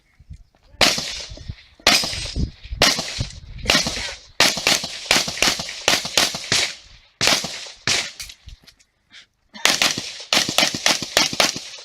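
Handgun shots fired in quick pairs and fast strings, each crack ringing out briefly, about twenty shots in all with short breaks between strings and a pause of about a second near the end before a last rapid string.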